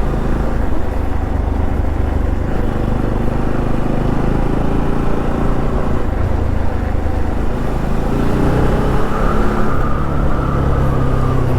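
Motorcycle engine running under way, with wind rushing over the microphone; the engine note climbs a little about eight seconds in.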